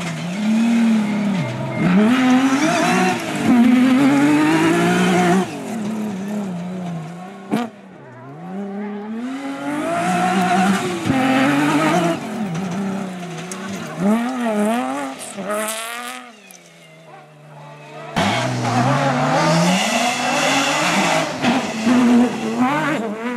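Off-road rally buggies racing flat out on dirt stages. Their engines rev up and drop back repeatedly through the gears over several passes, which end in abrupt cuts from one car to the next.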